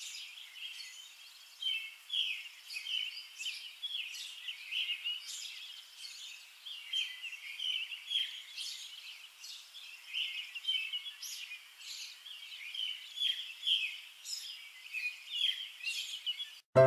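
Many birds chirping and twittering in quick, overlapping calls.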